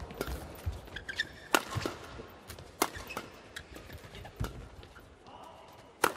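Badminton rackets striking the shuttlecock in a fast doubles rally: a string of sharp hits, about one every second and a half.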